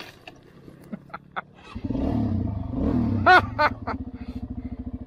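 Single-cylinder dual-sport motorcycle engines: engine noise swells about two seconds in as a bike rides up and slows, two short high-pitched sounds follow, then a steady, rapid thump of an engine idling.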